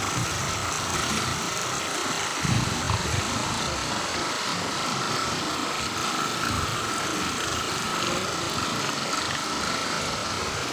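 Small waterfall rushing steadily, with a thin high tone held throughout and a few low thumps about two and a half seconds in.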